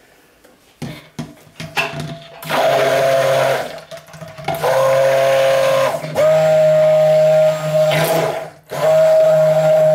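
Stick blender pulsed in raw soap frosting batter: a few light clicks, then the motor runs in four bursts with short pauses between them, blending in titanium dioxide as the batter thickens.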